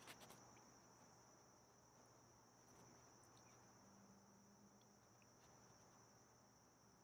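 Near silence, with a faint, steady, high-pitched cricket trill and a few soft clicks near the start.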